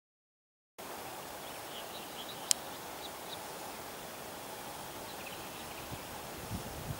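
Rural outdoor ambience that cuts in from silence just under a second in: a steady background hiss with faint, scattered bird chirps. A single sharp click stands out about two and a half seconds in, and a few low thumps come near the end.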